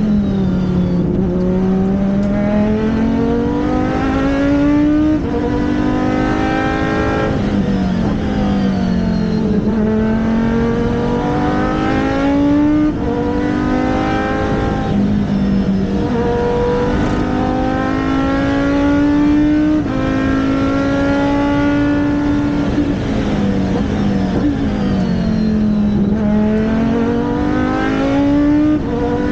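Race car engine under hard acceleration, its pitch climbing through each gear and dropping sharply at the shifts and lifts, over and over.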